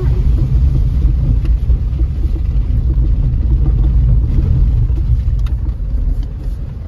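Steady low rumble of a car's tyres and suspension over a rough gravel and stone riverbed track, heard inside the moving car's cabin, with a few sharp small clicks scattered through it.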